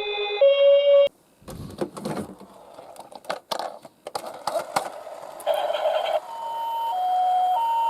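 A hi-lo two-tone ambulance siren that cuts off about a second in. Small die-cast toy cars then clatter and click, and a higher-pitched two-tone siren starts about six seconds in.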